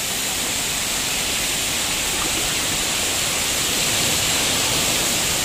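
Steady rush of falling and splashing water from water-park fountains and play features, with no break or change.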